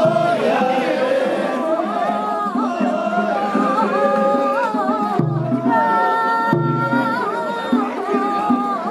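Japanese festival music: a high melody of held notes with wavering ornaments over a busy drum rhythm, with two deeper booms a little past halfway.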